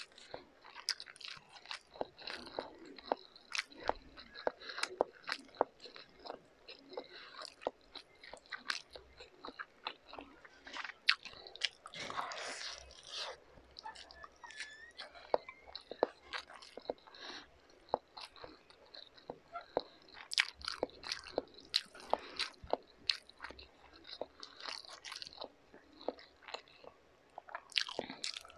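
Close-miked chewing and mouth sounds of someone eating stir-fried instant noodles (pancit canton) and fried egg by hand: many short wet clicks and smacks, several a second, with a longer noisy stretch about twelve seconds in.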